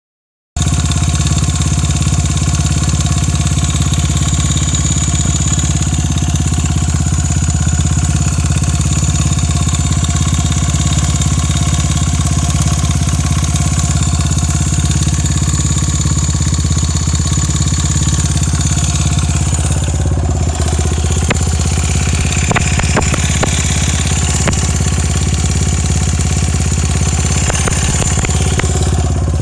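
Honda Ape motorcycle's 82 cc single-cylinder four-stroke engine running steadily at idle, making a noise that the owner suspects is abnormal. A few sharp ticks come in about two-thirds of the way through.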